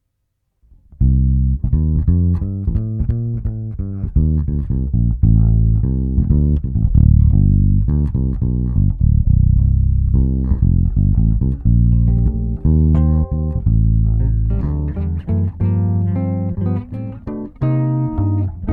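Electric bass guitar played through a compressor, a busy line of quick plucked notes starting about a second in. Higher notes come in more often during the second half.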